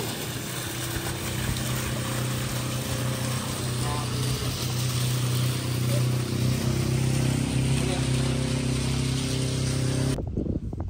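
A steady motor drone with a hiss over it, cutting off abruptly about ten seconds in.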